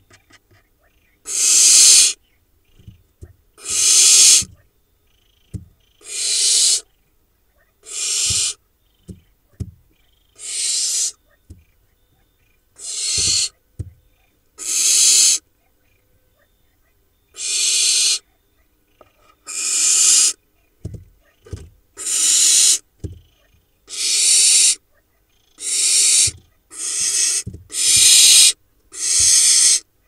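Barn owl nestlings giving their long hissing 'snoring' calls, the food-begging call of barn owl chicks. About fifteen calls, each under a second, come roughly every two seconds and grow more frequent near the end. Faint taps and scratches between the calls come from the chicks shifting on the nest material.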